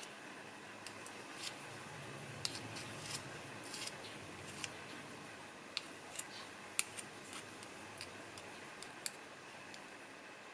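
A spoon scraping and tapping against a small metal tin of soft, setting cream: faint, irregular small clicks and scrapes over a steady low hiss.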